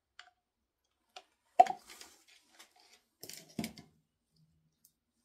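Plastic paint cups being handled and set down on a tabletop: a few scattered light clicks and knocks, the loudest about a second and a half in and another cluster about three and a half seconds in.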